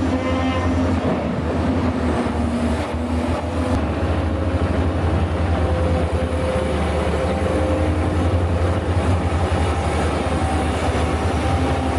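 Sennebogen log-loading material handler working: its engine runs steadily with a deep rumble, and a hydraulic whine shifts in pitch a few times as the crane moves.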